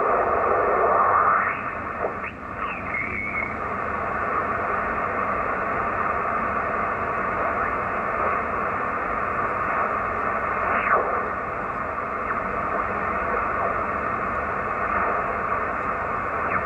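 ICOM IC-725 HF transceiver's receiver audio: a steady hiss of 20-metre band noise on upper sideband as the main dial is tuned across the band. Brief gliding whistles and garbled sideband voices come and go as signals are passed, around two seconds in and again near eleven seconds.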